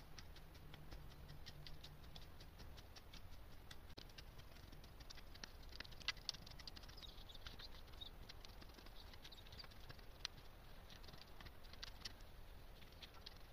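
Long-handled garden tool working through loose, clumpy soil: a faint, irregular patter of small clicks and scrapes as the tool drags and knocks through the dry clods, over a low steady rumble.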